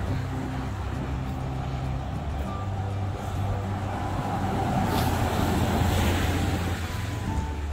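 Street traffic on a wet road: a low, steady vehicle engine hum, with a vehicle's tyre noise swelling about five seconds in and fading again.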